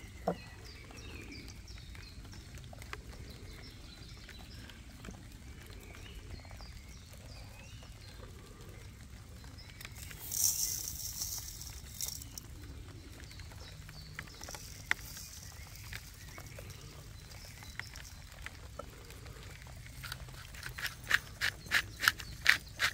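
Faint birdsong in the woods over a low background rumble, a short hiss about ten seconds in, and from about twenty seconds a run of sharp, evenly spaced knocks, about three a second.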